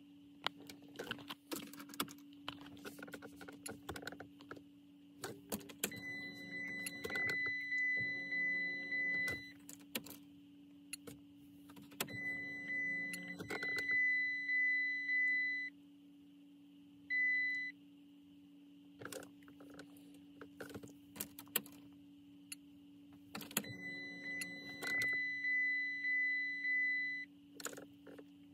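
Dodge Charger's cabin electronics during a PCM reflash: a dashboard chime sounds in pulsing runs of one to four seconds, four times, among scattered clicks over a steady low hum.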